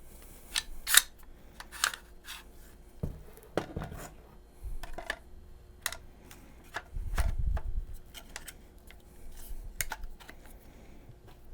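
Blackwater Sentry 12 pump-action shotgun being reassembled by hand: scattered clicks and knocks of metal and plastic parts fitting together, with some rubbing and a dull handling thump about seven seconds in.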